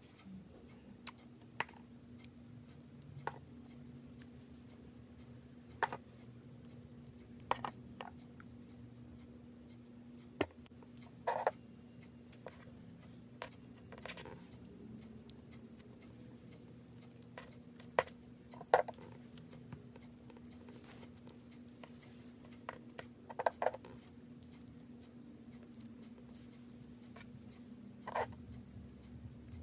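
Slime being pressed and handled, making irregular small sticky pops and clicks about every one to two seconds, over a faint steady hum.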